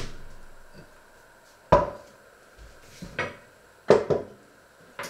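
Kitchen clatter: a sharp knock at the start, then several clanks of metal kitchenware with a short ring, the loudest about two and four seconds in.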